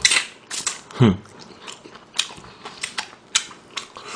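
Close-miked eating: biting and chewing a fried chicken drumstick, with irregular crunches and wet mouth clicks, and a brief low vocal sound about a second in.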